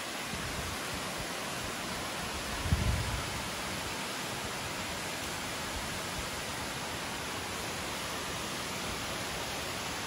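Steady rushing hiss of a waterfall spilling down a cliff face into a pool, with a brief low thump about three seconds in.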